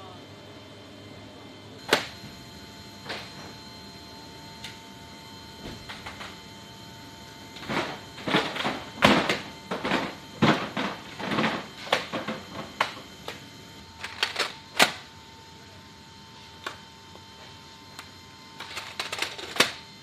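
Sharp metallic clicks and clanks of a C-17's cargo-floor rail locks and rollers being worked by hand. A few single clicks come first, then a dense run of clanks through the middle, then a quick cluster of clicks near the end, over a steady high-pitched whine.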